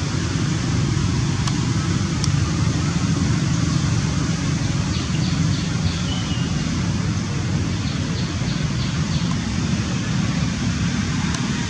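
Steady low rumble of outdoor background noise, with two quick series of four faint high chirps about five and eight and a half seconds in.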